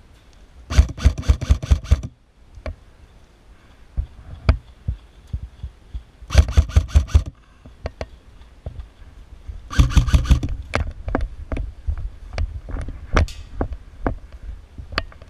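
Airsoft electric rifle firing three bursts of rapid, evenly spaced shots, about a second each: near the start, near the middle and about two-thirds through. Single sharp clicks and cracks are scattered between the bursts.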